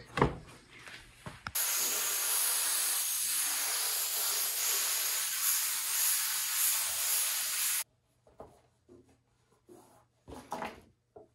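Compressed-air spray gun hissing steadily for about six seconds as it sprays solvent-grade trim adhesive, starting and cutting off abruptly. A few faint handling sounds come before and after it.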